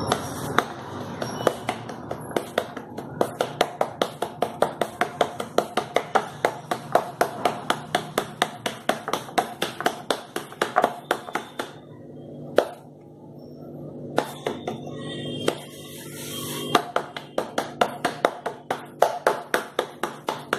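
Palm patting soft flatbread dough out thin on a floured wooden board: quick rhythmic slaps, about four a second, with two short pauses a little past the middle.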